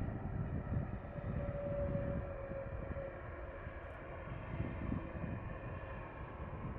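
Airliner engines whining steadily over a low, fluctuating rumble as a plane comes in to land.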